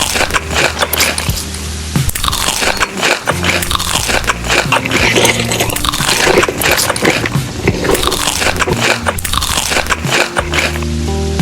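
Close-up crunching as someone bites and chews crisp food, with background music under it.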